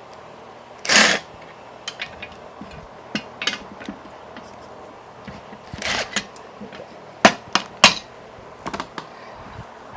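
Hand tools clanking and knocking on metal parts: a longer scraping clank about a second in, a rasping scrape near six seconds, then three sharp metal strikes in quick succession, with a few lighter taps between.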